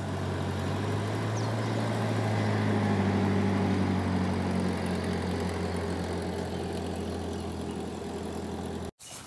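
An engine idling steadily, a low even hum that cuts off suddenly near the end.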